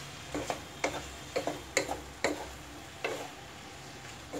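Wooden spatula tapping and scraping against a non-stick kadai while stirring cauliflower and potato pieces, about six irregular taps over a low steady background.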